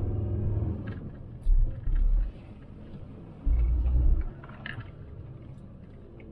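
VW T4 Transporter van on the move, heard from inside the cab: engine and road rumble, with heavy low thumps about one and a half, two and three and a half seconds in.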